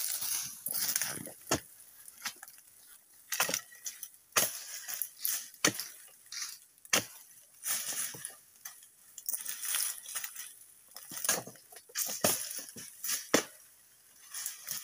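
Irregular sharp chops of a long-handled pole blade cutting oil palm fronds from the trunk, a second or more apart, with dry rustling of the palm fronds between the strikes.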